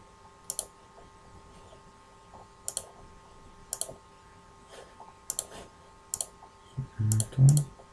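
Computer mouse button clicking as dialog buttons and schematic parts are clicked: sharp clicks, single and in quick pairs, about every second. A brief low murmur comes near the end over a faint steady hum.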